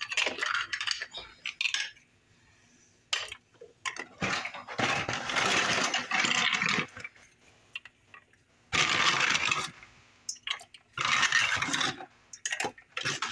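Dry jumbo pasta shells being placed by hand into a pot of boiling water, in several noisy bursts of handling and splashing with quiet pauses between.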